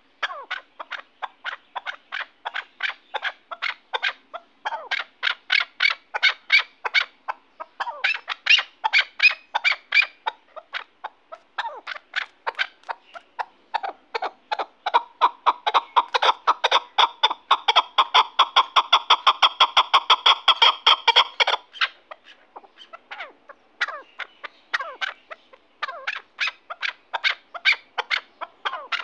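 Chukar partridge calling: a long run of short repeated notes, about four a second, that from about halfway through speeds up into a denser, louder rally, stops suddenly about three-quarters through, then picks up again after a short pause.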